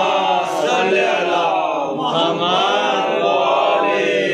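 A group of voices chanting together, without a break except for a short dip about two seconds in.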